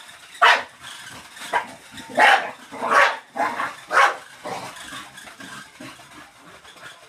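Dog barking in play: about six sharp barks in quick, uneven succession over the first four seconds or so.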